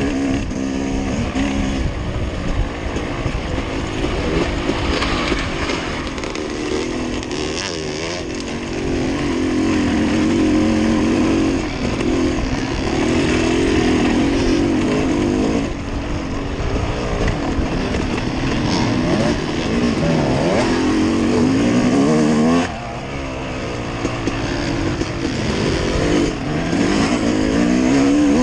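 Motorcycle engine running while riding, its pitch rising and falling with the throttle, with a sharp drop in level about three-quarters of the way through.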